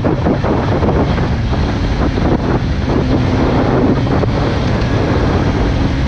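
Heavy wind buffeting on the microphone of a Kawasaki Ninja 600 sport bike riding at speed, with a steady engine tone faintly underneath from about halfway in.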